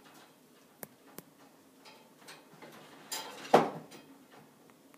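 Kittens moving about inside a wire pet cage: a few light metallic clicks and rattles from the wire bars, then a louder knock about three and a half seconds in, as of a kitten landing on a cage shelf.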